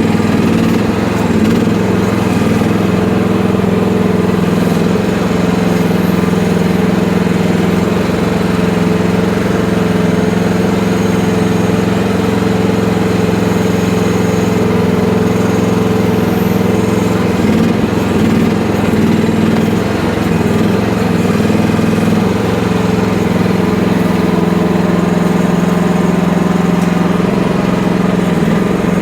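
FF12 mini excavator's small engine running steadily at a constant speed.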